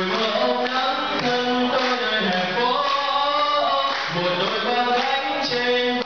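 A man singing into a handheld microphone, his voice amplified through a sound system, with long held notes.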